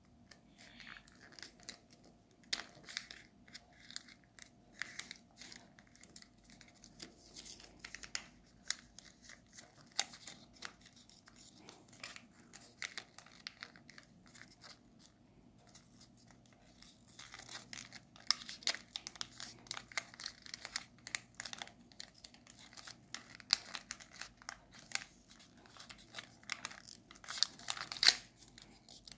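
A folded sheet of origami paper crinkling and rustling as fingers crease, press and shape it. The sound comes as many short crackles that grow thicker in the second half, with the loudest one just before the end.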